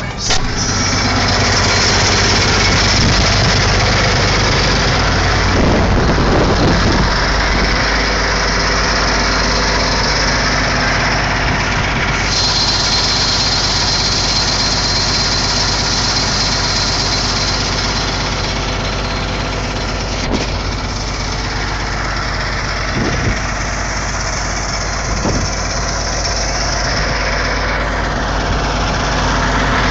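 Caterpillar Challenger MT875 rubber-tracked tractor's diesel engine running steadily, heard close by.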